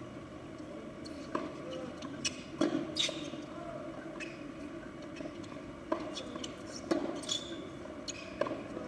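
Tennis ball impacts, racket strikes and bounces on the court, coming as sharp knocks roughly a second apart with a gap in the middle, over faint background voices.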